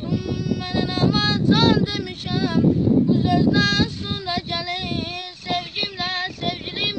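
A voice singing an Azerbaijani folk song in a long, ornamented line with quick wavering trills, over a steady rushing noise.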